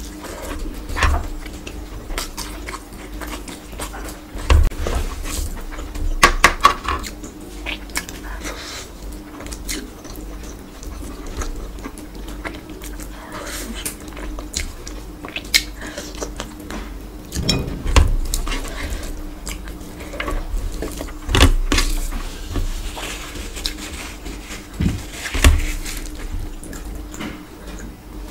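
Close-miked eating by hand: chewing and smacking mouthfuls of rice and mutton curry, with irregular wet mouth clicks and the squish of rice being mixed by fingers. A faint steady hum runs underneath.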